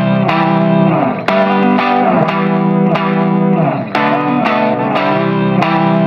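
Background music: a new chord struck about once a second over a steady held bass.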